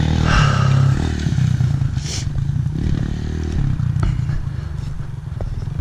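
Kawasaki KLX 140L dirt bike's single-cylinder four-stroke engine running steadily as the bike slides around on snow, with a couple of brief hissing surges.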